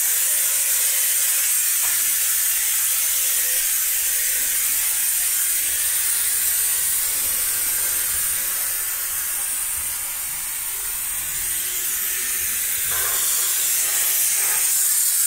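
Ariete 4164 Multi Steam handheld steam cleaner blowing a continuous jet of steam from its nozzle: a steady hiss, dipping slightly about two-thirds of the way through.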